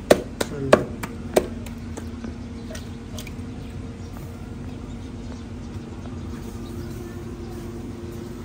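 Roti dough slapped between the palms four times in the first second and a half, then a steady low hum with a few faint taps.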